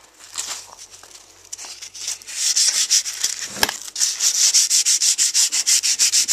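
Hand sanding with quick back-and-forth strokes, light and irregular at first, then from about two seconds in fast and steady at about eight strokes a second, with one sharp click midway.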